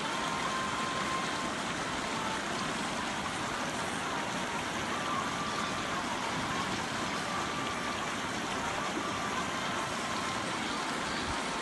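Shallow river running over stones and gravel: a steady rush of flowing water.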